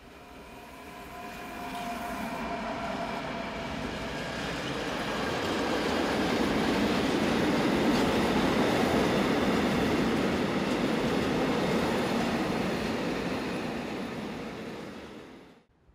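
DB class 152 electric locomotive hauling a freight train of tank wagons past at close range. A few steady tones come from the locomotive at first, then the wagons' wheels rolling over the rails build to a steady rumble, loudest about halfway through, easing off and then stopping abruptly near the end.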